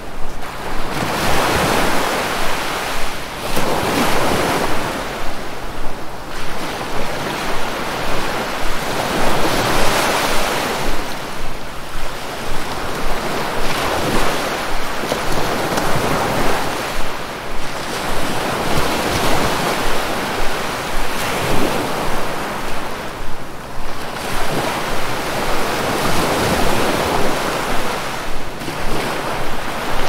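Sea waves: a continuous rush of surf that swells and eases every few seconds.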